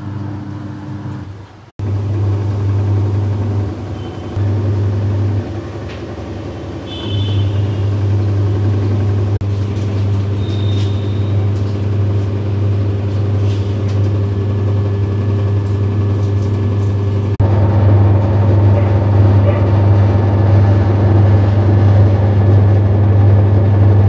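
Samsung top-load washing machine running, its motor giving a steady low hum as the drum spins in the spin cycle. The level jumps abruptly twice, about two seconds in and again past the middle.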